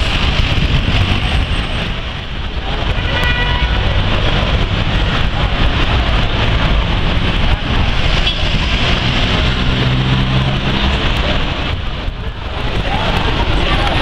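Dense city-centre traffic noise at a busy intersection: cars, buses and motorcycles running and pulling away in a steady din of engines and tyres. A short high-pitched tone sounds about three seconds in, and a heavy engine drones low for a couple of seconds past the middle.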